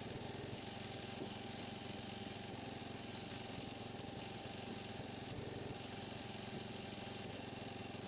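Engine running steadily at a constant speed, with a faint knock or two.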